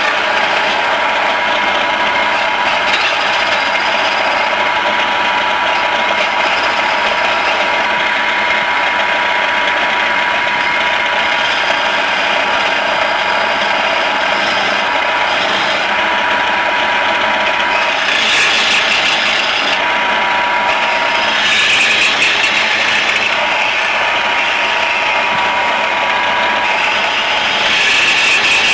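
Homemade lathe's electric motor running steadily with a constant whine, while a hand-held chisel scrapes and cuts the spinning workpiece. The cutting noise swells in louder stretches about two-thirds of the way through and again near the end.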